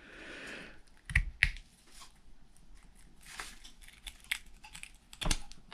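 Screwdriver prying at the end bell of an RC car's electric motor: a short scrape, then scattered light clicks and knocks of small metal parts.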